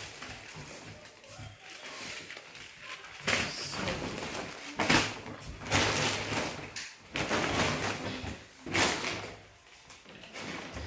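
Rustling and crinkling of a plastic shopping bag and packaged groceries being handled, coming in several short bursts.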